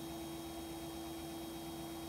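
Front-loading washing machine in its spin cycle, the drum spinning fast to wring water out of the clothes, giving a steady whine at one pitch over a low hum.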